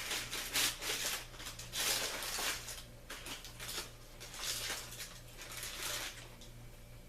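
Takeout food packaging rustling and crinkling as it is handled, in irregular bursts that die away about six seconds in.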